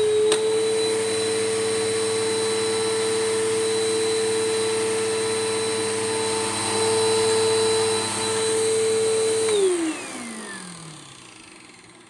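Bissell Powerforce Helix 1240 upright vacuum cleaner running with a steady motor whine and airflow hiss, with a single click just after the start. It is switched off about three-quarters of the way through, and the motor whine falls in pitch and fades as it spins down.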